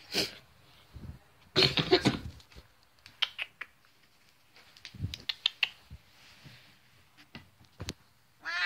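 Scattered rustles and soft clicks from a house cat moving about and the phone being handled close to it, with a short, louder sound about two seconds in.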